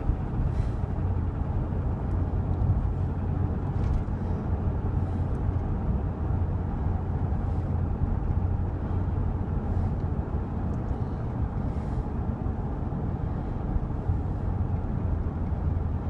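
A 1999 GMC Suburban's 5.7 L Vortec V8 pulling under acceleration on the road, a steady low drone. The engine has a tick that fades as it warms up, which the owner takes to be possibly a lifter rather than a rod.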